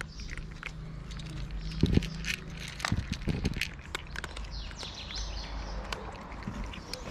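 Several cats crunching dry kibble from plastic bowls: a quick run of small crisp crunches and clicks, with a few heavier knocks about two to three and a half seconds in, over a steady low hum.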